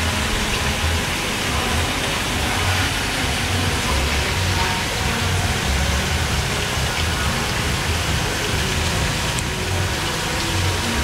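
Steady rushing hiss of running or splashing water, with an irregular low rumble underneath.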